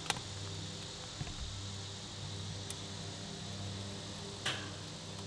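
Small wood-and-paper fire just catching in a portable smokeless fire-pit stove, with a few sharp crackling pops, the strongest near the start and about four and a half seconds in. Under it runs a steady low hum.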